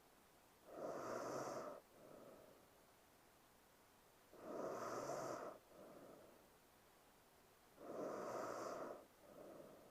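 A sleeping woman's heavy sleep breathing. There are three loud, noisy breaths about three and a half seconds apart, each followed at once by a shorter, softer one.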